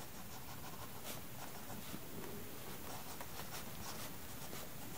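Graphite of a 2 mm lead-holder pencil scratching faintly on sketchbook paper in short, repeated strokes.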